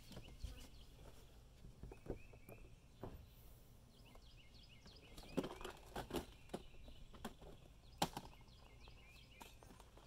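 Plastic tackle boxes being lifted and shifted in a boat's storage compartment, giving scattered light clicks and knocks, several together about halfway through and one sharper click near the end. Birds chirp faintly in the background.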